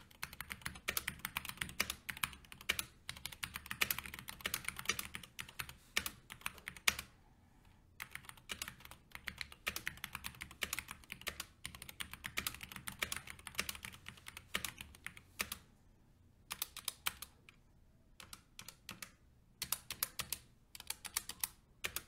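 Typing on a SteelSeries Apex Pro's linear OmniPoint mechanical switches, with no click mechanism: quick runs of key presses clacking, broken by a few short pauses.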